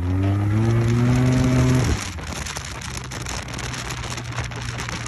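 Maxi-scooter engine accelerating, its pitch rising steadily for about two seconds until the throttle is closed and the sound drops away suddenly. It then runs on at a lower, steady note under the rush of wind and road.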